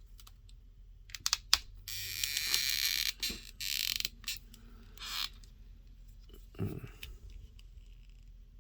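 Plastic action figure being handled, with its stiff hip joints worked: a few sharp clicks about a second in, then scraping and creaking of plastic on plastic.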